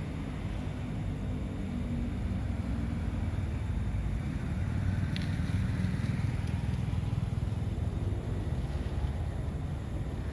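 Steady low rumble of motor vehicle traffic, growing a little louder midway.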